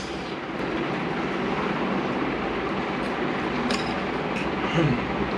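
Steady rushing background noise, with a few light clinks of a fork against a steel bowl of noodles in the second half.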